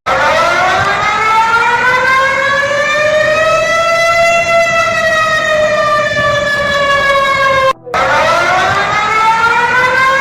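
Civil-defence style warning siren wailing: its pitch rises slowly for about four seconds and then falls. It cuts out for a moment near eight seconds and starts rising again.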